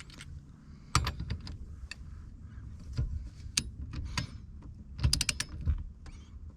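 Ratchet or torque wrench clicking and metal tool knocks as the steering-wheel hub nut is tightened to the torque spec. Irregular sharp clicks, with a quick run of clicks a little past five seconds.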